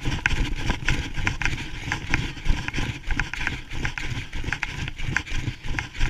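Husky-drawn dog sled running over snow: a steady low rumble with frequent irregular knocks and clatters as the sled jolts along.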